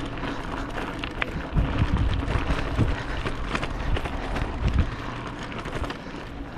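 Bicycle rolling fast downhill on a dirt and gravel road: tyres crunching over loose stones, with the bike rattling and many small knocks over a steady low rumble.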